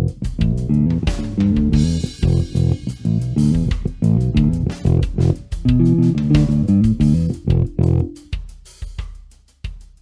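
Gretsch G2220 Junior Jet II short-scale electric bass with single-coil pickups, played fingerstyle: a quick run of plucked notes over drums, stopping about eight seconds in and leaving only faint decaying hits.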